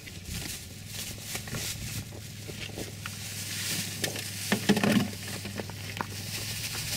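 Water being poured out of a plastic bag of fish into a plastic bucket, with the bag crinkling and water pattering and splashing. A cluster of louder knocks and rustles comes about four and a half seconds in.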